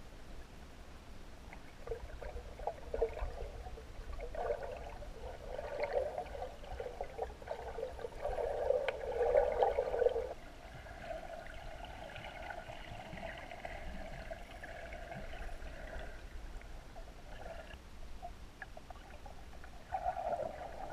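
Muffled underwater water noise, bubbling and sloshing as heard through an underwater camera, with a louder crackling stretch that cuts off abruptly about halfway through.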